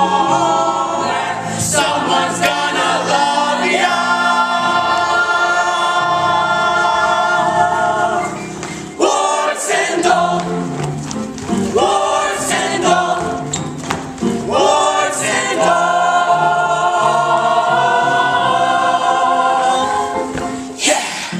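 Group of voices singing a show tune together over musical accompaniment, holding long sustained chords twice, the second near the end.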